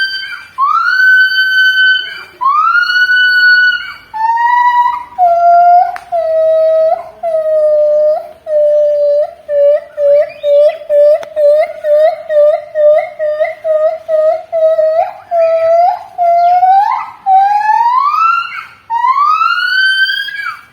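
Javan gibbon great call, siren-like. It opens with long whoops that rise in pitch, then runs into a quickening series of short, lower hoots, and near the end climbs back up into long rising whoops.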